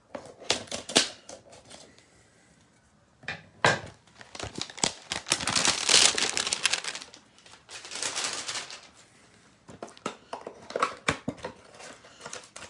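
A cardboard hanger box of trading cards being torn open and the wrapped cards pulled out, with crinkling of the wrapper. Scattered clicks and taps are followed by two spells of tearing and rustling in the middle.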